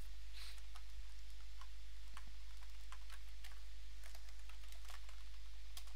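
Typing on a computer keyboard: irregular keystroke clicks over a steady low hum.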